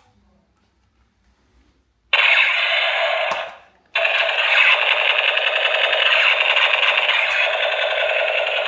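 Electronic sound effect from a battery-powered toy's small speaker: a loud, harsh buzzing rattle that starts abruptly about two seconds in, breaks off briefly just before four seconds, then carries on steadily.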